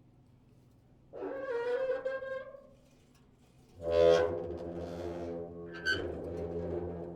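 Old metal door creaking on its hinges as it is swung: a drawn-out groan, then after a pause a louder, longer groan with a sharp knock about six seconds in.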